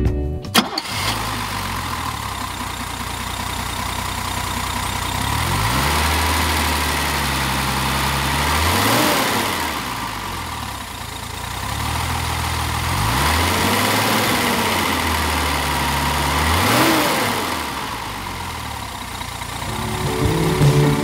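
1969 Mercedes-Benz 280 SL (W113) fuel-injected inline-six idling with the bonnet open. It is revved and let fall back three times, about nine, fourteen and seventeen seconds in.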